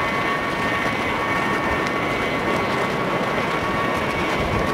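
MV-22 Osprey tiltrotor running on the ground nearby: a loud, steady roar of rotors and turboshaft engines with a steady high turbine whine over it.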